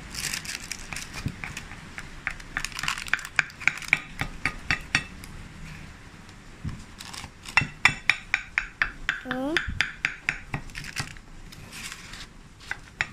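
A metal knife cutting a burnt cheesecake on parchment paper, clicking and scraping against the hard surface underneath in quick runs of about five clicks a second.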